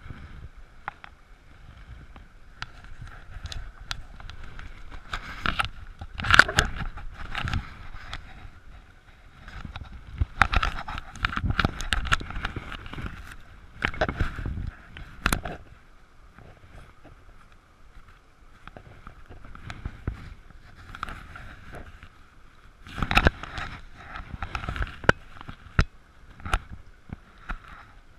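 Shallow, stony stream running steadily close by, with several bouts of splashing and knocking from hands working in the water.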